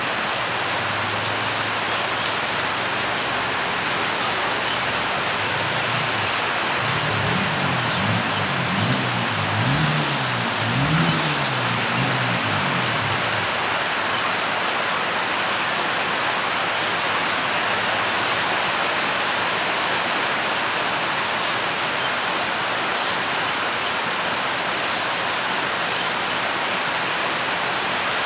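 Heavy rain pouring onto a flooded street: a steady hiss of drops hitting the water. From about six to thirteen seconds in, a vehicle engine sounds under the rain, its pitch rising and falling several times.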